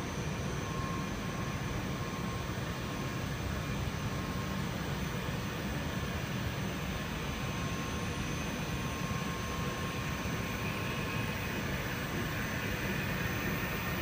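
Steady mechanical drone with air noise and a low rumble, with a faint thin whine above it, from the running equipment of a rubber extrusion and microwave vulcanization line.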